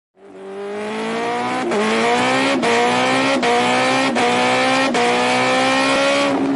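Engine accelerating hard through about six quick upshifts. The pitch climbs in each gear and drops at each shift, then holds and eases off near the end.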